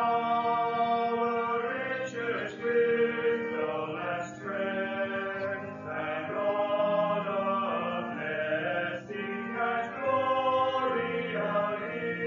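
Sung church liturgy or hymn: voices singing a slow melody in long held notes over steady accompanying notes.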